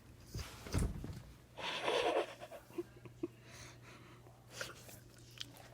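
Dog snorting and huffing air through its nose as it tries and fails to sneeze. There are two loud noisy bursts, a short one under a second in and a longer one at about two seconds, and a fainter one near the end.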